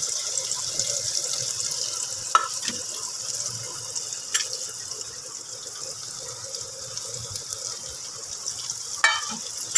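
Chopped onion sizzling in hot oil with cumin seeds and dried red chillies in an aluminium pot, a steady crackling hiss. A few metal clinks near the end as a steel plate is handled over the pot.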